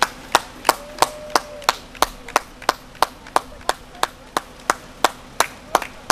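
A person clapping hands in a steady, even rhythm, about three sharp claps a second.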